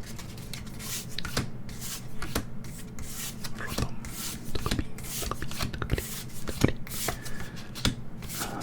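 Pokémon trading cards being flipped and slid through the hands one after another: a run of quick card-stock swipes and small clicks.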